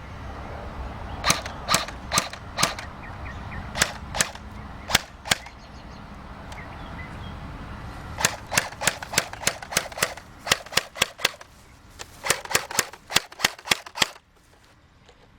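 JG G36C airsoft electric rifle firing: sharp snapping shots, first singly with pauses, then a quicker string of about four or five shots a second from about eight seconds in, and another quick string near the end.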